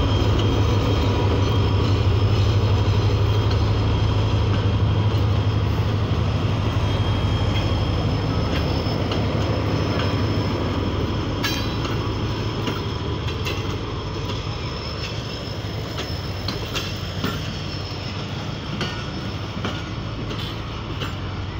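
Pakistan Railways HGMU-30 diesel-electric locomotive passing close by, its deep engine rumble loud at first and fading as it moves on, then passenger coaches rolling past with scattered clicks of wheels over the rail joints.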